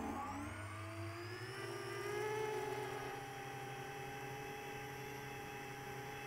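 Brushless motors and three-blade 10-inch props of an FPV quadcopter (iFlight XING 2814 motors) whining in flight: several pitches rise together over the first two seconds or so as the drone climbs, then hold steady.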